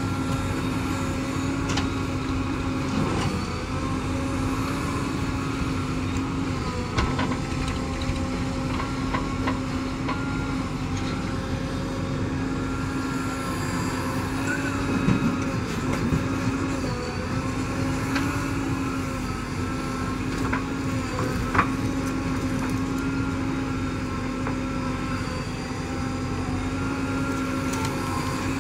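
JCB 3DX backhoe loader's four-cylinder diesel engine running steadily under hydraulic load while digging and swinging soil, its pitch dipping briefly now and then. A few sharp clunks stand out, the loudest about three-quarters of the way through.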